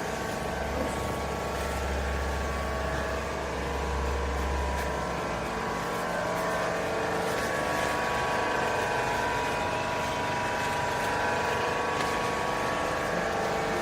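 Hydraulic machinery of a vertical lifting-chamber baler running steadily, a drone with a whine of several held tones; a deep low hum drops away about five seconds in.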